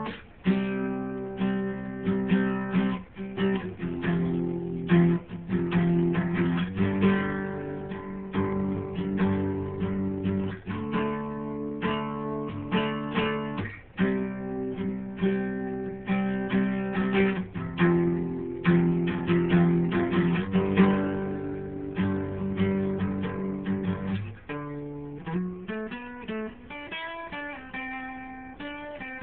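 Acoustic guitar strummed in repeated chords. Near the end it changes to picking single notes in a short running line.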